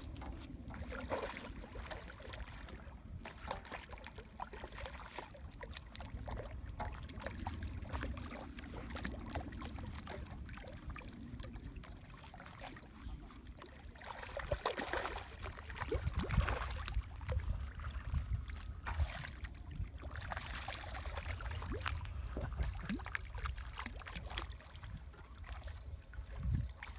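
Wind buffeting the microphone over water lapping, with scattered small clicks and knocks from handling.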